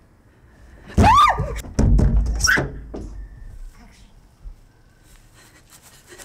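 A loud cry whose pitch rises and then falls, over a heavy low thud, about a second in, followed by a second shorter high cry and thud at about two and a half seconds; after that only faint ticks and rustles.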